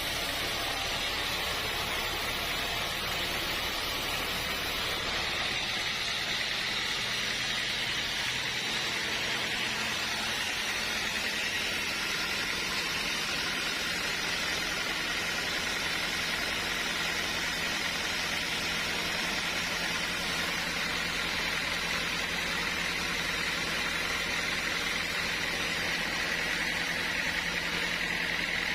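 Sawmill machinery running steadily: an even mechanical noise with a high whine, no cut starting or stopping.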